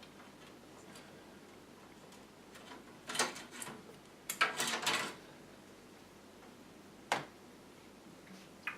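Parts being handled in a desktop computer case: two short bouts of scraping and clunking about three and four and a half seconds in, then a sharp click about seven seconds in and a lighter one near the end.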